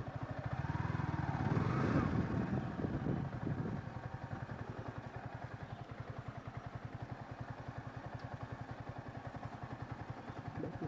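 Yamaha R15 V3's single-cylinder engine running at low speed with a rapid, even pulsing beat, louder for a couple of seconds near the start, then steady as the bike rolls slowly.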